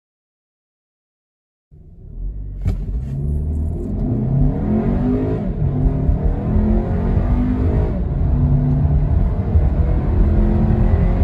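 Silence for nearly two seconds, then a 2021 Audi Q3 Quattro's turbocharged four-cylinder engine at full-throttle acceleration from a standstill, heard from inside the cabin. The engine note climbs, drops at an automatic gearbox upshift about five seconds in and again near eight seconds, and climbs again.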